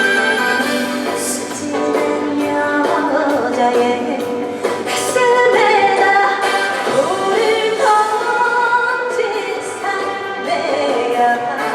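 Trot song played through a PA system: a woman singing over a backing track with strings, her voice coming in a few seconds in.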